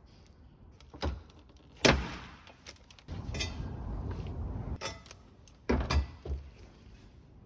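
Knocks and clanks of hard parts being handled and set down, the loudest about two seconds in with a short ring, and a stretch of scraping in the middle, typical of a swivel stool being taken apart for restoration.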